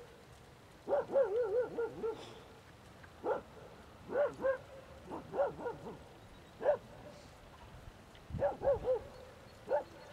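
A dog whining and yipping: short high cries, each rising and falling in pitch, in little groups of two to four that recur every second or so.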